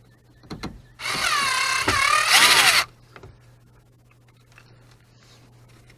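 Power drill driving a speaker mounting screw: after a couple of small clicks, the motor whines for about two seconds, its pitch dipping just before it stops.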